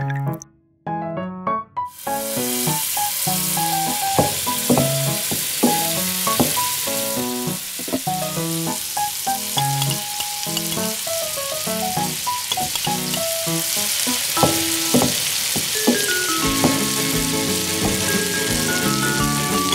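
Food frying in hot oil in a miniature pan: a dense, steady sizzle that starts about two seconds in, with light background music throughout.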